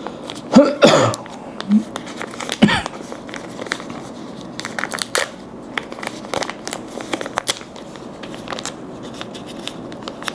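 Plastic packaging crinkling and tearing as small accessories are unpacked, with many small crackles and clicks and a few brief squeaky sounds in the first three seconds.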